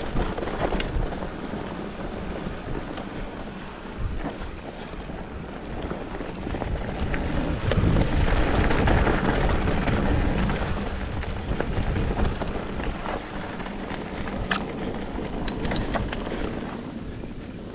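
Wind buffeting a camera microphone over the rumble and rattle of a mountain bike riding downhill on a dirt trail, loudest about halfway through. A few sharp clicks come near the end.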